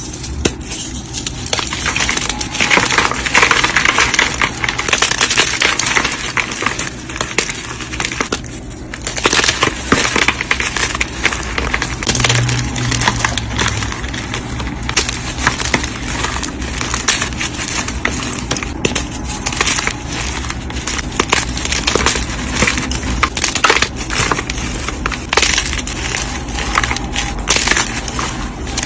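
Blocks of dyed gym chalk being crushed and crumbled, a dense, continuous run of crisp crunches and crackles.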